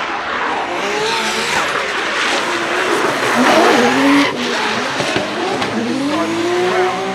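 Drift car engine revving hard, its pitch repeatedly rising and falling, over tyres squealing as the car slides. The loudest stretch comes around three to four seconds in, with a brief sharp dip in the sound just after.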